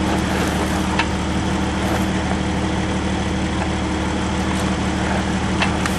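Jeep engine idling steadily, with two faint clicks: one about a second in and one near the end.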